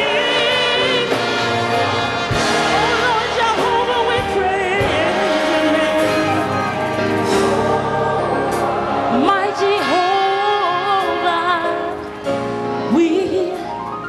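Gospel choir singing with a female soloist, held notes with strong vibrato and several upward vocal slides in the second half.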